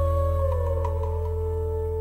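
Background music: a slow, soft instrumental intro of held notes over a steady low drone, one melody note sliding gently down about half a second in.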